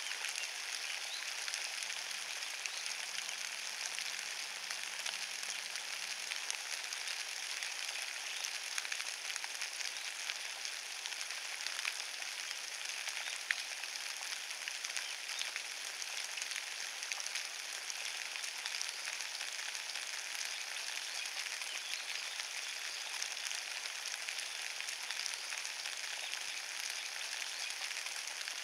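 Steady rain falling on a bed of wet fallen leaves: an even hiss made of countless small drop ticks.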